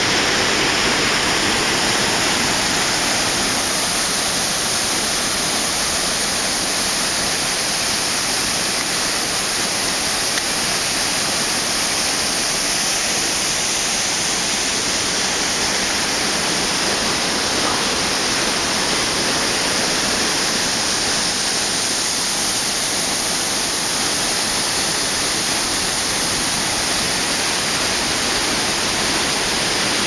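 Waterfall and river rapids: a steady, loud rush of water pouring over rocks.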